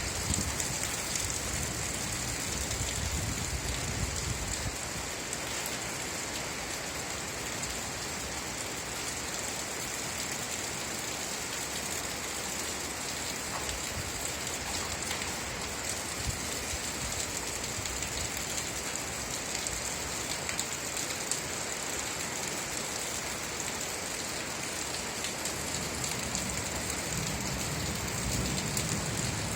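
Steady rain falling, an even hiss with fine patter of drops. A low rumble swells in the first few seconds and again near the end.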